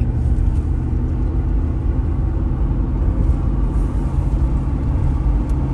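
Steady road and engine rumble of a car driving along a highway, heard from inside the cabin.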